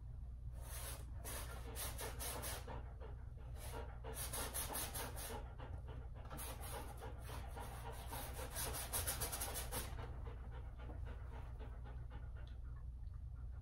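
Paintbrush scrubbing oil paint onto a large canvas in runs of quick back-and-forth strokes that stop about ten seconds in, over a steady low hum.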